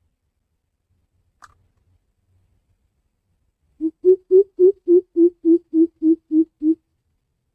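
Greater coucal (crow pheasant) giving its deep hooting call: a run of about eleven low, evenly spaced hoots, about three and a half a second, starting about halfway through and lasting some three seconds.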